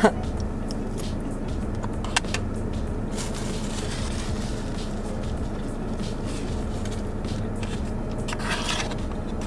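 Steady low hum of an idling car, heard from inside the cabin, with a few faint clicks and rustles of eating from a plastic bowl.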